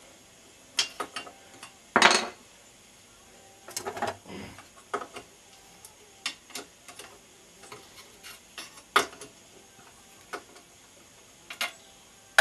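A wrench working the bolts that hold a moped's exhaust: scattered metallic clicks and clanks, the loudest about two seconds in and a cluster around four seconds in.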